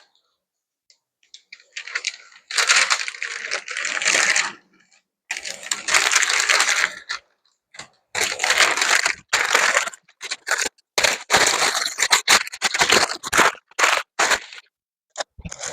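Masking tape and masking paper being peeled off freshly painted truck bodywork and crumpled, in irregular crackling, tearing bursts with short pauses between.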